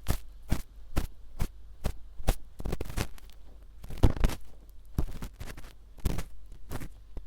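Ear pick scraping and rustling in an ear, in short irregular strokes roughly twice a second, the loudest about four seconds in, over a steady low mains hum.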